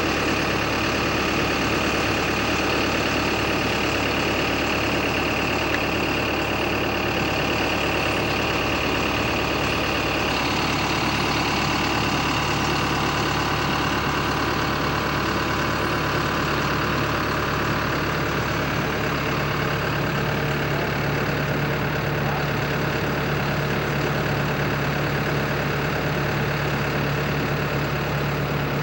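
An engine running steadily, a continuous low hum with several steady tones; its note changes slightly about ten seconds in.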